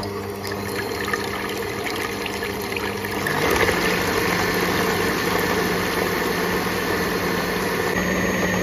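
Electric hand mixer with twin beaters whipping egg whites in a bowl: the motor starts abruptly and runs with a steady hum. About three seconds in it gets louder and slightly higher in pitch.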